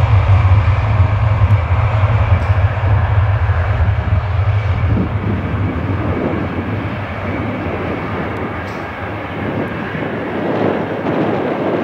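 Turbofan engines of a rear-engined Fokker twin-jet airliner running at high power as it rolls down the runway away from the listener. There is a strong low rumble that fades about halfway through, under a steady jet roar that slowly grows fainter.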